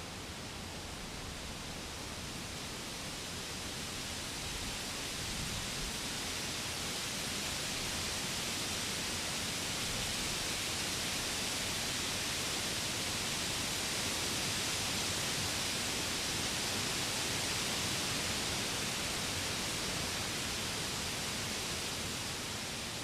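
Wind rushing through forest trees and leaves: a steady hiss that swells slowly into a long gust and eases off near the end.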